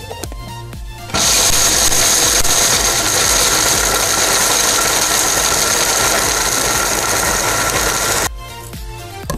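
Electric blender's grinding jar running at full speed, chopping almonds and pistachios into a coarse powder: a loud steady motor whine that starts abruptly about a second in and cuts off a second before the end.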